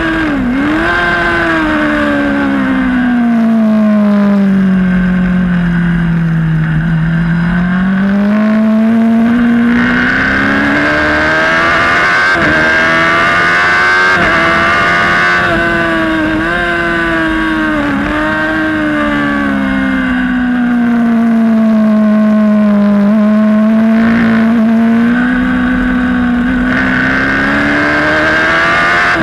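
Race motorcycle engine heard from onboard at racing speed. Its pitch falls slowly over several seconds and then climbs again, with brief sharp dips at the gear changes.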